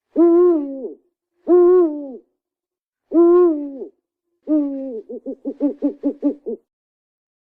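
An owl calling: four drawn-out hoots, each dropping in pitch at the end, then a quick run of about eight short hoots.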